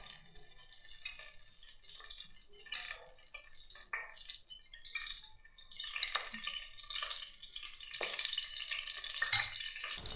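A steel spoon clinking and scraping against a small bowl and the pressure cooker as cooking oil is spooned into the heated pot, with irregular light clicks. A faint hiss of oil in the hot pan grows denser in the second half.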